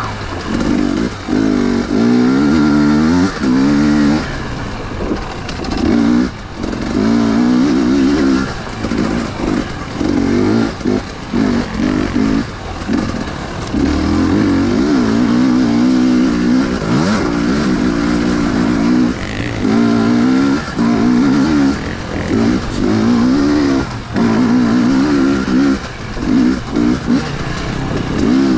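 Husqvarna TE 250i enduro motorcycle's single-cylinder engine under way on a trail, its pitch rising and falling over and over as the throttle is opened and shut, with short drops in loudness between pulls.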